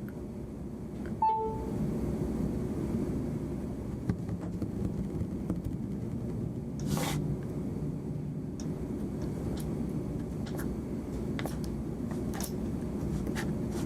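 Steady low background rumble with small clicks and handling noises of a phone being worked on. A short electronic beep about a second in drops from a higher to a lower note, and a brief rustle comes about halfway through.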